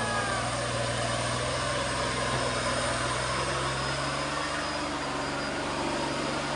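Mitsubishi Fuso heavy truck's diesel engine running steadily as the loaded truck crawls along slowly.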